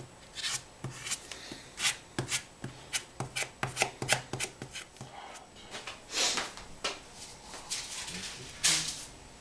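Spreader scraping and tapping against sheets of cotton paper as JB Weld epoxy is worked over them: an irregular, rapid run of short scrapes and clicks.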